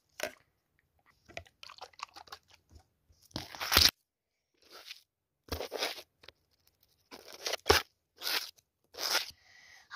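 Crunching and rustling handling noises right at the phone's microphone, in a string of short bursts with gaps between, the loudest a little after three seconds in and again near eight seconds.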